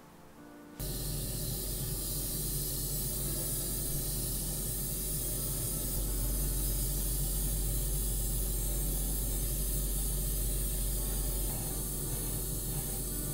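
Steady hiss and low hum of an airbrush spraying paint inside a hobby spray booth with its extractor fan running; it starts suddenly just under a second in.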